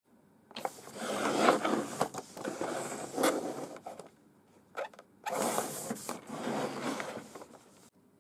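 Plastic toy rattling and clicking in two stretches of about three seconds each, with a few sharp clicks in the short pause between them.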